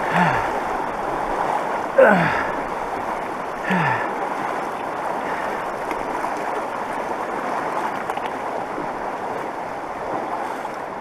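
Fast mountain river rushing steadily. Over it, three short falling vocal sounds from the hiker in the first four seconds.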